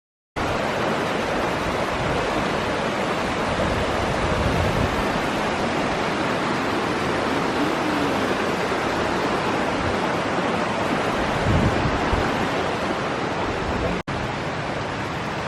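Creek water rushing steadily over rocks and rapids, breaking off for an instant near the end.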